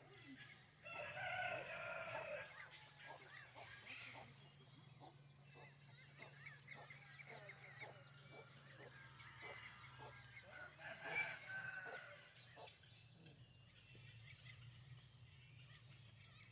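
Roosters crowing at dawn: one long crow about a second in and another near eleven seconds, with many short chicken and bird calls in between, faint.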